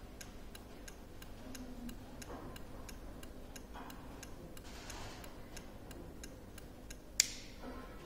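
Turn-signal flasher relay clicking faintly and steadily, about three clicks a second, with the hazard warning lights flashing. A louder click comes about seven seconds in, and the ticking stops with it as the hazard lights are switched off.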